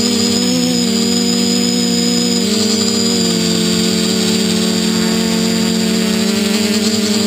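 Quadcopter's four SunnySky 2212 980kv brushless motors spinning 10x5 propellers, heard from on board: a steady hum with a thin high whine above it. The pitch shifts slightly about two and a half seconds in.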